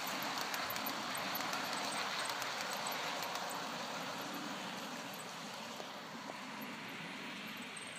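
Bachmann model train's coaches rolling along garden track: a steady rumble and hiss of wheels on rail, with light clicks in the first few seconds, fading gradually as the train moves away.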